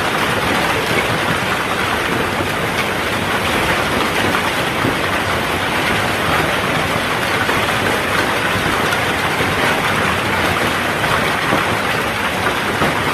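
Heavy rain with hail falling in a storm, a dense steady hiss.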